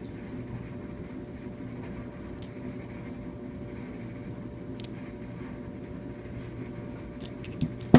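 Steady low background hum, with a few faint clicks and, near the end, a quick cluster of sharper clicks from small metal high-pressure fuel pump parts being handled.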